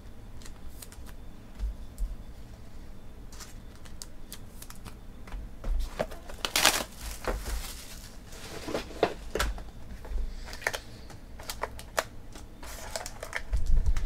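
Hands handling trading cards and a cardboard hobby box on a table: scattered clicks and taps, a longer sliding rustle about halfway through, and a low thump near the end.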